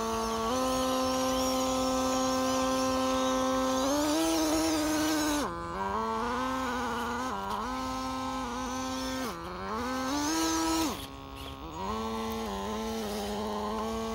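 Electric drive motor of a WPL C-14 RC crawler truck whining, its pitch rising and falling with the throttle and dropping sharply about three times before climbing back.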